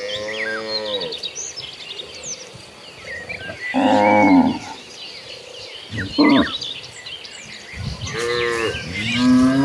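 Cattle in a herd mooing, several cows calling one after another: a long moo at the start, a loud one about four seconds in, a short one near six seconds, and two more near the end. Faint chirping runs behind the calls.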